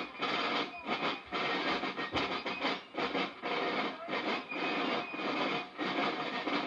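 Rope-tension field drums played together in a rudimental cadence: dense snare rolls in short phrases with brief breaks about every half second.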